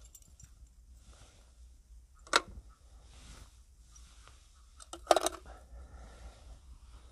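Handling noise of small hard objects: one sharp click about two seconds in and a quick cluster of clicks around five seconds, over faint rustling.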